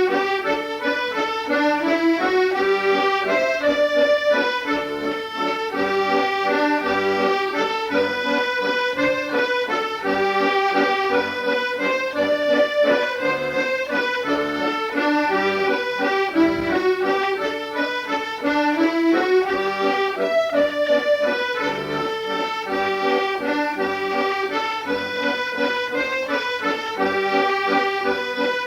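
Accordion playing a traditional-style medley, a lively melody over held chords.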